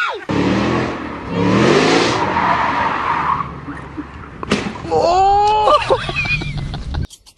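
Ford Mustang doing a burnout: the engine revs, rising in pitch a second or two in, over the hiss and squeal of the spinning rear tyre. It cuts off abruptly near the end.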